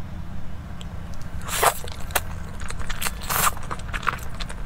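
Close-miked wet eating sounds of noodles in thick sauce: two longer slurps, about a second and a half in and again about three seconds in, with small wet mouth clicks between.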